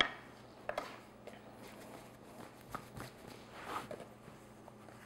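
Quiet kitchen handling sounds: a sharp knock on the countertop at the start, then a few soft taps and a rustle as a lump of soft bread dough is picked up and set onto a digital kitchen scale.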